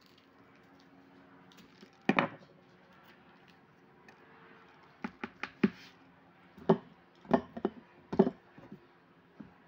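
Hand-and-kitchen handling sounds while green chili peppers are cleaned and moved to a bowl: a single knock about two seconds in, then a quick run of sharp clicks and taps from about five to eight and a half seconds. A faint steady hum sits underneath.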